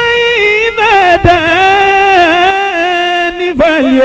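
A man chanting a Qur'anic verse in melodic tajwid recitation, drawing out the words in long held notes that waver with ornaments and step down in pitch, dropping lower near the end.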